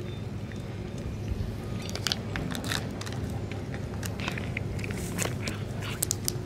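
A cat chewing and biting chunks of grilled bonito and chicken: irregular wet, crunchy chewing clicks that start about two seconds in, over a steady low hum.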